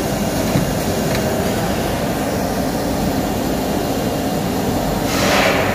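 STD-2030ATC CNC router with an automatic tool-change spindle, running with a steady mechanical drone just after start-up. A short hiss sounds about five seconds in.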